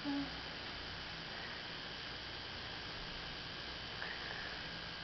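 Steady hiss and hum of a home recording's background, with faint steady whining tones. A short vocal sound comes at the very start, and a faint brief high squeak about four seconds in.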